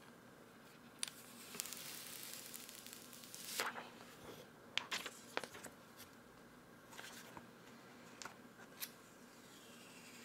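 Faint handling noise: hands turning over an Oculus Go headset, with light rustling for a couple of seconds and scattered small clicks and taps.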